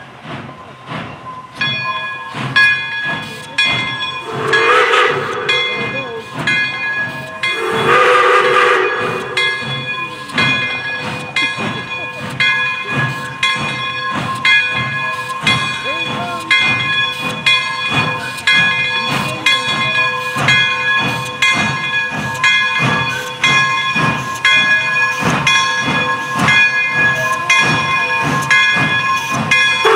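Pere Marquette 1225, a 2-8-4 Berkshire steam locomotive, running with a steady rhythmic exhaust beat while a bell rings over and over. It sounds two whistle blasts, about four and eight seconds in.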